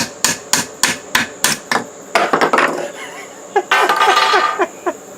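A hammer drives a nail into wood with a quick run of evenly spaced blows, about three a second, for the first two seconds. Two longer, noisier sounds follow in the second half.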